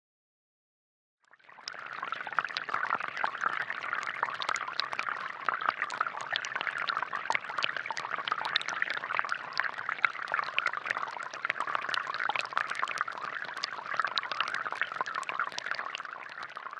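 Water pouring and splashing steadily, with many small droplet ticks, starting about a second in.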